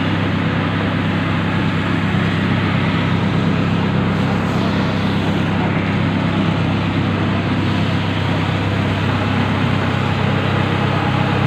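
Fire pumper's engine running at a steady drone to drive the hose line, with water hissing from a fire hose nozzle as it sprays.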